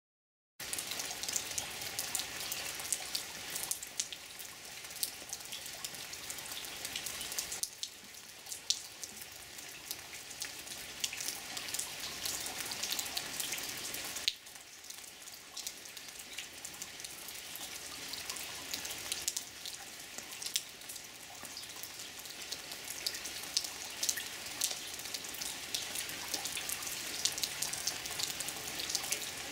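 Steady rain falling: an even hiss with many separate drop ticks, easing slightly twice.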